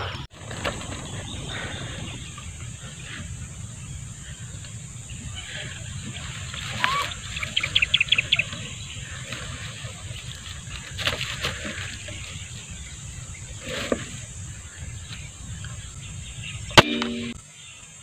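Birds calling now and then over a steady outdoor background, then a single sharp shot from a CO2 air rifle near the end.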